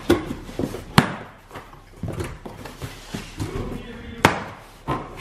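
Cardboard shipping box being opened by hand: packing tape peeled off and the flaps pulled open, with rustling and three sharp snaps of cardboard and tape.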